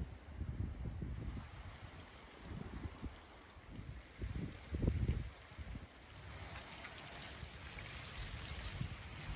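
A cricket chirping at a steady rate of about three chirps a second, stopping about six seconds in, over low rumbling that is loudest about halfway through. In the last few seconds a soft hiss of rain sets in.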